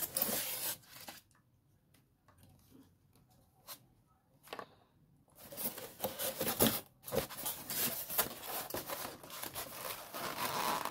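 Packaging being handled by hand: the polystyrene foam packing rubs and rustles for about a second. A quiet stretch of a few seconds follows, broken by a couple of light knocks. Dense rustling and crackling handling noise then runs from about five seconds in.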